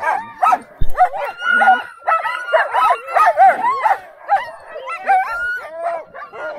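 A team of sled dogs barking over one another in a dense, continuous chorus of many voices, with a short dull knock about a second in.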